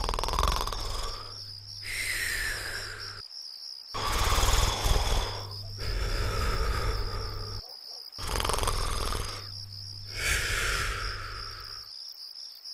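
Cartoon snoring: three rounds of a rasping snore in, each followed by a whistling breath out that falls in pitch, about every four seconds. A steady high chirring of crickets runs underneath.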